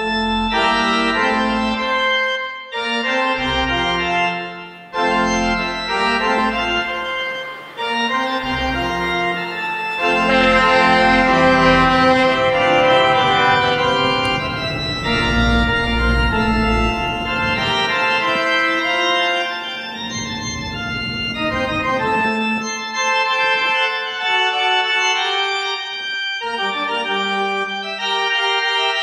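Organ music playing sustained chords in phrases, with short breaks between them and a deep bass part through the middle.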